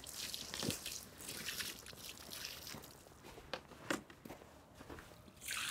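Faint crunching footsteps in snow, with scuffing and a few light knocks from sawn walnut slabs being handled.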